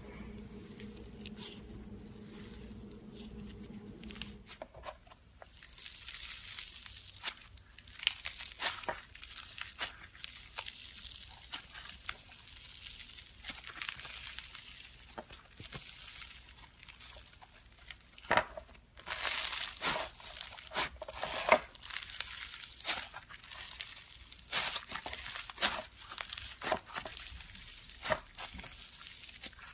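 Slime being squeezed and stretched by hand, making dense crackling and popping with many sharp little clicks. It starts about four or five seconds in after a quiet start and is loudest about two-thirds of the way through.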